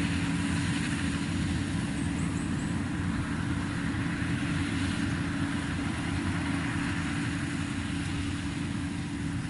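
Diesel engine of farm machinery running steadily at constant speed, an even low drone.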